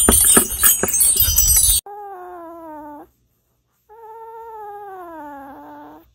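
Hanging wind chime tubes clanging and rattling hard as a large dog bites at them, cut off suddenly about two seconds in. Then a chihuahua gives two drawn-out, wavering howls, a short one and a longer one, each sagging slightly in pitch.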